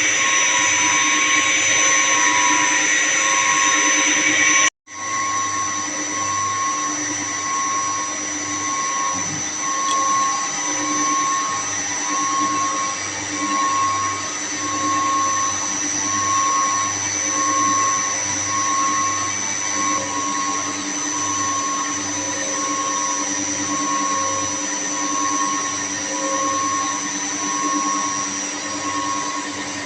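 Steady hum of running machinery with a constant high whine and a mid tone pulsing about once a second. The sound cuts out abruptly for a moment about five seconds in, then carries on slightly quieter.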